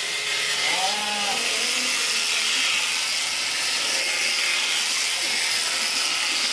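Electric sheep-shearing clippers running steadily through a Babydoll sheep's fleece, with a short sheep bleat about a second in.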